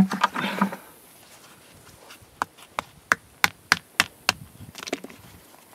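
A green-husked hickory nut being struck on a flat rock to split it: a run of about seven sharp knocks, roughly three a second, then a few softer clicks as the husk comes apart.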